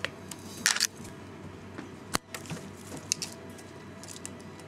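Kitten playing with a feather wand toy in a wire cage: scattered rustles and light clicks of the toy and its claws. There is a short rustling burst near the start and one sharp click about two seconds in.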